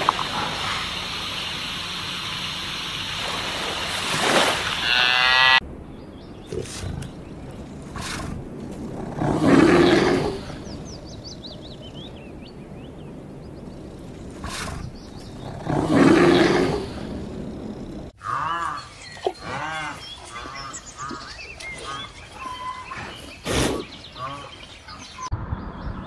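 Bear calling twice with long, low roars, about ten and sixteen seconds in; these are the loudest sounds. Before them is a steady noisy stretch that cuts off about six seconds in, and after eighteen seconds comes a different clip of short rising-and-falling animal calls.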